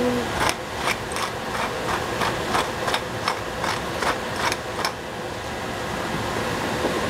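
A run of light, sharp knocks, about three a second, from cooking utensils being worked in the kitchen; they stop about five seconds in. Underneath, a steady mechanical hum.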